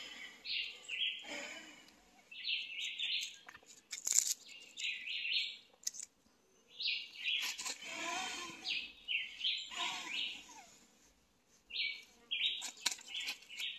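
A songbird chirping in repeated bursts of short, high notes, about five phrases with pauses between, over faint rustling of sticks and dry leaves.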